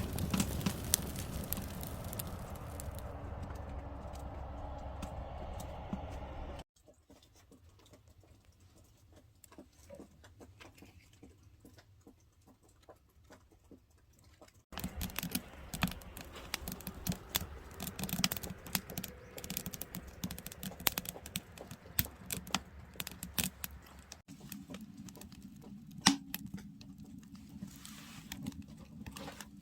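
Wood fire crackling and popping: irregular snaps and ticks over a low hiss, with one sharp pop near the end. The sound comes from several cut-together clips, and one in the middle is much quieter.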